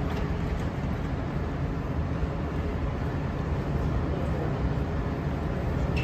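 LA Metro heavy-rail subway train rumbling steadily at an underground station, a low even rumble with no squeal or sharp sounds.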